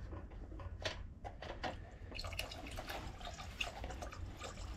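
Engine oil draining from a riding mower's crankcase through a cut-down plastic bottle spout and splashing into a metal drain pan. A few clicks and knocks come in the first two seconds, then the stream of oil runs steadily from about two seconds in.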